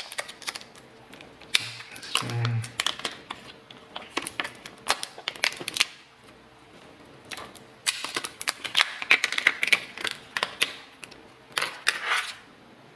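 Thin protective plastic film being peeled off a new phone, crackling and crinkling in irregular bursts with sharp clicks. There are two busy stretches, one early and a longer one in the second half.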